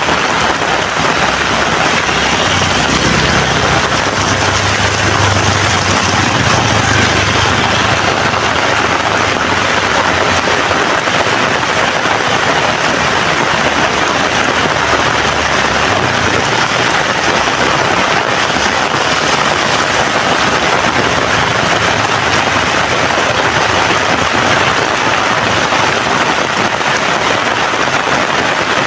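Heavy rain falling steadily in a dense, even hiss. A low rumble swells under it about three seconds in and fades out by about eight seconds.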